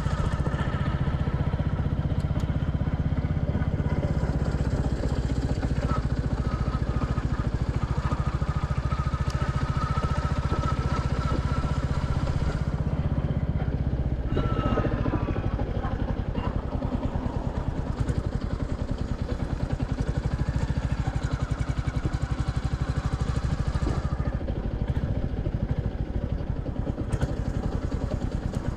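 Royal Enfield Classic 350's single-cylinder engine thumping under way. About halfway through, the engine note drops and gets quieter as the bike eases off.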